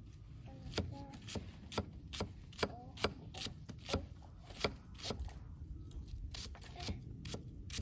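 A series of sharp knocks, irregularly spaced at about two a second, louder in the first half.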